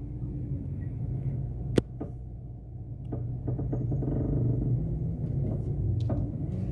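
Engine idling, heard from inside the cabin of a 2010 Chevrolet Meriva 1.4, with a sharp knock a little under two seconds in and a few smaller creaks and knocks later. The noises come from the front suspension as the steering is worked: a fault the customer reports as creaking and knocking when turning the wheel.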